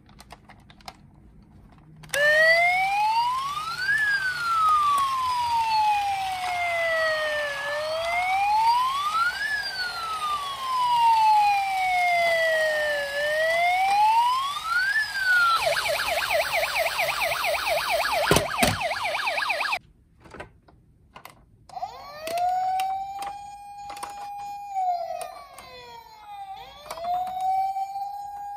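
Toy police cars' electronic siren sounds: a slow wail rising and falling over and over from about two seconds in, then a fast warble that cuts off suddenly. After a short pause a different siren tone rises to a held pitch and falls away, with clicks among it.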